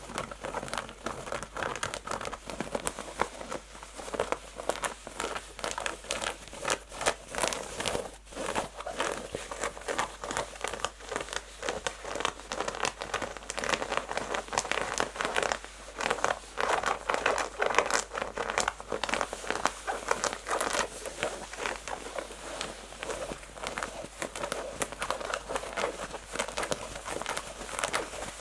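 Fingernails scratching fast and hard across rough, textured denim jeans fabric: a dense run of quick, raspy scratch strokes, with a brief pause about eight seconds in.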